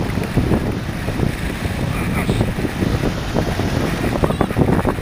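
Strong wind buffeting the microphone in irregular gusts over rushing water, aboard a Hobie 16 sailing catamaran in high wind.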